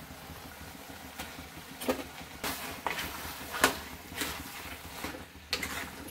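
Metal ladle stirring curry in a steel kadhai, giving a series of irregular sharp clinks and scrapes against the pan over a faint steady hiss.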